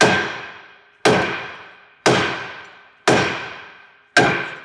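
Five heavy hammer blows about a second apart on a seized one-piece cast-iron brake rotor of a 2011 Cadillac CTS-V Wagon, stuck on the wheel hub. Each blow is a loud metallic clang, and the rotor rings and fades before the next strike.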